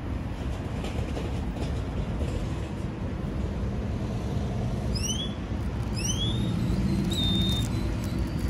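Steady low rumble of road traffic and wind outdoors. Two short rising whistles about five and six seconds in, and a brief high steady tone a second later.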